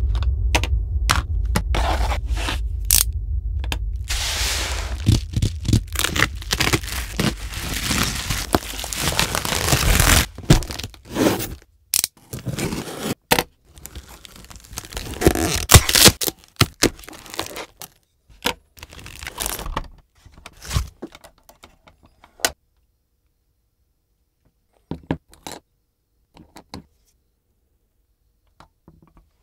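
Unboxing handling sounds close to the microphone: packaging scraping and tearing, with many sharp clicks and knocks. It is busy for the first half and then thins to scattered clicks with quiet gaps. Low intro music fades out over the first ten seconds.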